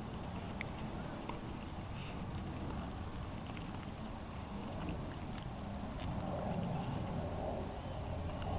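A red fox cub eating dry biscuits from a foil tray: faint, irregular crunching and clicks of chewing, against a steady background hiss.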